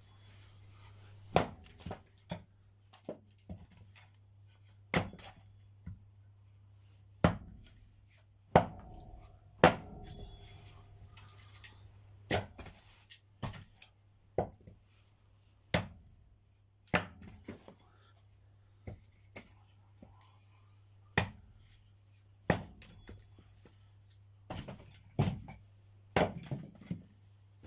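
Firewood being chopped: sharp wooden strikes at an uneven pace, about one every one to two seconds.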